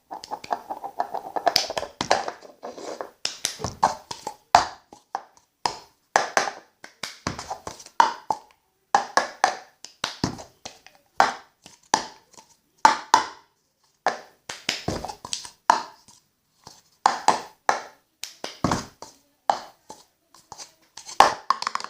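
Hands squishing and pressing slime into a container, making irregular sticky pops and crackles, one or two clusters a second.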